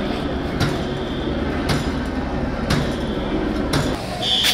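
Steady low rumble of street noise with a sharp knock about once a second. Near the end an electronic alarm starts sounding a shrill, steady high tone.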